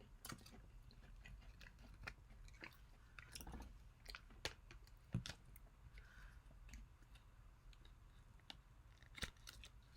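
Faint chewing of the Kinder Joy egg's snack of cocoa cream and crispy wafer balls, with scattered soft crunches and clicks.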